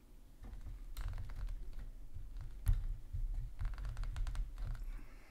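Hands handling and posing a 1/6 scale action figure on its stand: a quick run of small plastic clicks and rustles, with one louder knock about two and a half seconds in.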